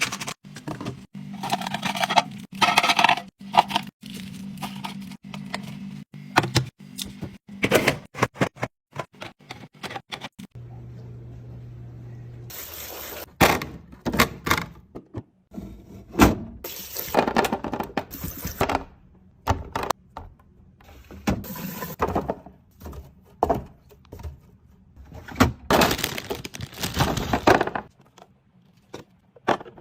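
Items being handled and set down during a restock: a long run of clicks, knocks and clatter of containers and packaging, with stretches of rustling.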